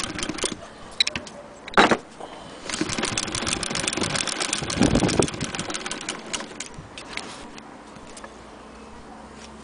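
Antique Husqvarna Freja hand-crank sewing machine being turned by its handwheel: a fast run of mechanical clicking and clatter lasting about four seconds, thinning to scattered clicks near the end. A single loud knock comes about two seconds in.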